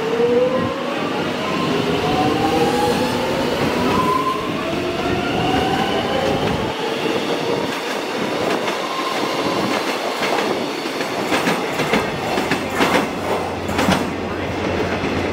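Electric suburban train accelerating away from a station, its traction motors giving a rising whine over the first several seconds. In the last few seconds a quick run of wheel clicks over rail joints.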